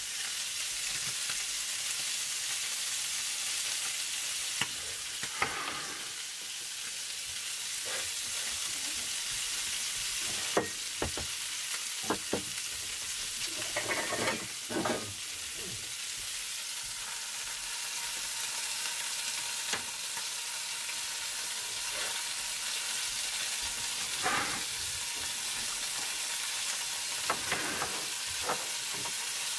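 Food sizzling steadily in a frying pan on a gas burner, with scattered light clicks and knocks of dishes and utensils being handled, a cluster of them in the middle and a few near the end.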